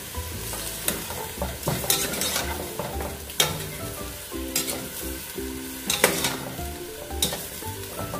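Chicken pieces sizzling as they are sautéed in a large aluminium pot, stirred with a long metal ladle that scrapes and clanks against the pot several times.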